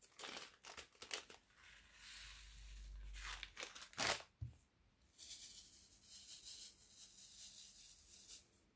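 Faint crinkling and clicking of a small plastic bag of square resin diamond-painting drills as it is opened and poured into a plastic drill tray. From about five seconds in, a soft steady rattle as the tray is shaken to settle the drills.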